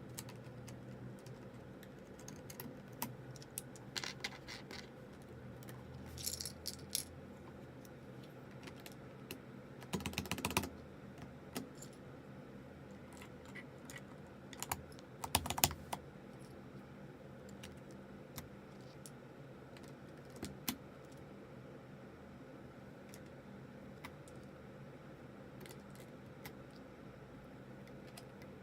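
Plastic clicks and clacks of keycaps being pulled off and pressed onto the switches of a zz96 mechanical keyboard, coming in irregular clusters with quiet gaps between.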